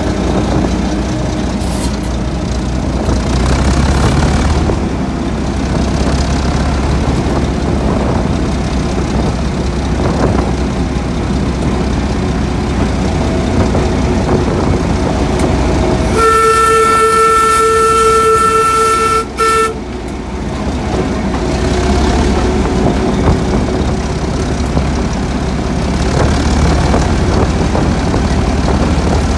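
Class 08 diesel shunter's English Electric six-cylinder engine running steadily. A little past halfway there is one horn blast lasting about three and a half seconds, a single steady note.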